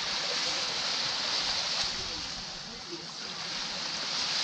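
Gentle sea waves washing onto the beach: a steady hiss of surf that ebbs and swells, rising again near the end.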